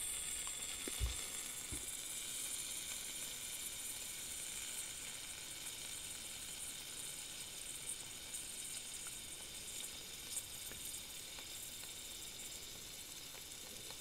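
Compressed butane hissing from a refill can pressed onto the inlet valve of a Zippo soft yellow flame butane insert as the insert's tank is filled, with some gas spilling out around the nozzle. The steady high hiss slowly weakens, with a few faint clicks from handling.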